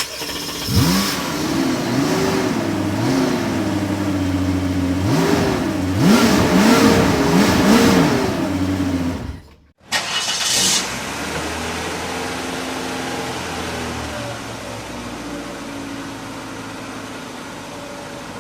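Car engine revved repeatedly, its pitch rising and falling in several blips. It cuts off suddenly at about ten seconds into a second recording: a short burst, then an engine running steadily and fading slightly toward the end.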